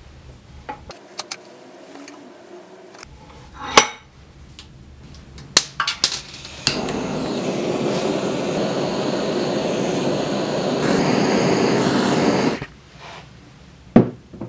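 A few sharp metal clicks and clinks, then a handheld butane torch flame hissing steadily for about six seconds while it heats a copper coin on a steel block, cutting off suddenly. A couple more sharp clinks near the end.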